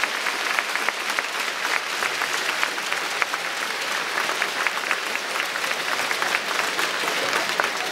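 Crowd applauding steadily in a large arena, a dense patter of many hand claps.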